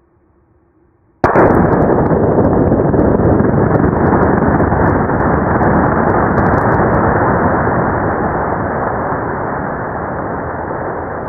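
Tannerite explosion inside a pumpkin, set off by a rifle shot and played back in slow motion. A sudden blast about a second in stretches into a long, dull rumble with no high end, which fades slowly.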